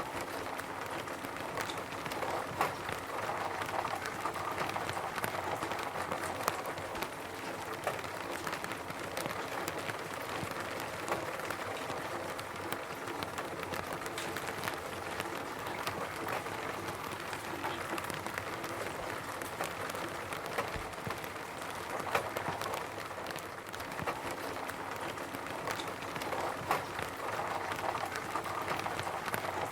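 Steady rain falling on a roof: a dense patter of drops with scattered louder individual drip strikes.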